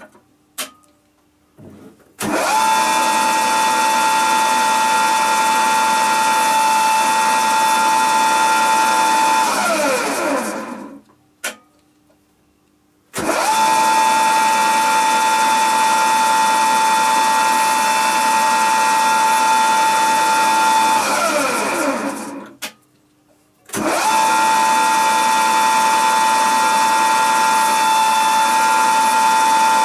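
Small high-speed grinder motor driving the grinding wheel of an end mill sharpening fixture, used to grind the end mill's cutting edges. It is switched on three times: each run is a steady high whine for about seven to eight seconds, then it winds down with falling pitch. In the short quiet gaps between runs there are a few light clicks.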